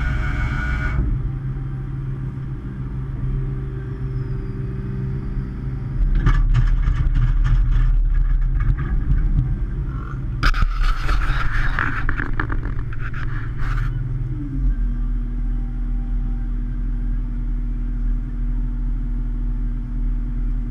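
Hitachi ZX210 excavator's diesel engine and hydraulics running an auger. From about six seconds in it runs louder for several seconds, with rattling knocks and scraping. The engine note then drops and settles to a steady hum.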